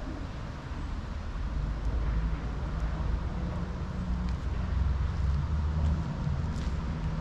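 Distant road traffic: a low rumble that swells and fades, with a few faint clicks over it.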